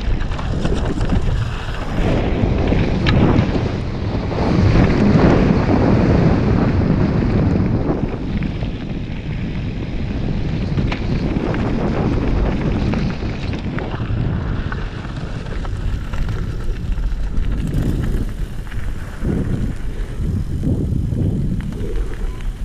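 Wind buffeting a helmet camera's microphone on a fast mountain-bike descent, over the rumble of tyres on dirt and gravel and a few sharp rattles from the bike. It is loudest in the first seven seconds or so and eases as the bike slows onto flatter gravel.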